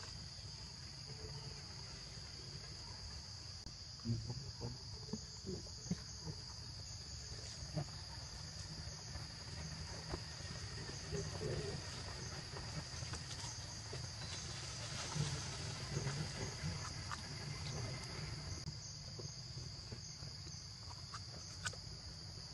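Steady high-pitched insect chorus, unbroken throughout, with scattered light rustles and ticks.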